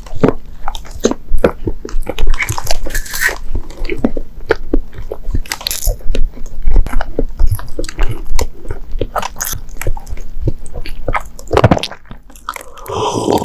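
Close-miked chewing of a mouthful of dorayaki, a run of quick wet mouth clicks and smacks. Near the end a sip from a teacup and a swallow.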